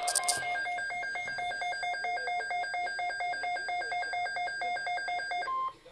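NOAA Weather Radio Emergency Alert System SAME header: rapid, warbling electronic data tones that chirp and alternate for about five seconds after a few sharp clicks at the start. Near the end a single steady alert tone begins and is cut off after a moment.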